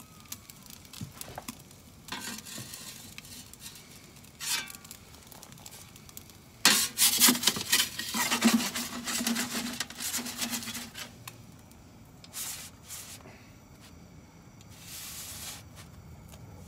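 Metal pizza peel scraping and clattering on the stone floor of a Roccbox gas pizza oven as the pizza is slid out. A few light scrapes come first, then a loud stretch of scraping from about seven seconds in, lasting around four seconds.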